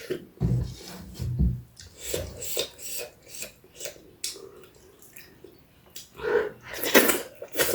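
Close-miked eating sounds: wet chewing and smacking of the mouth at an irregular pace, with a louder, longer wet sound near the end.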